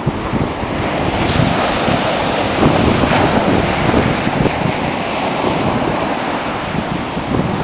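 Ocean surf breaking and washing up the beach, with wind buffeting the microphone.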